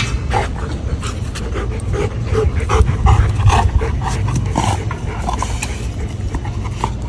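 A dog panting, with many short, irregular sounds over a steady low rumble.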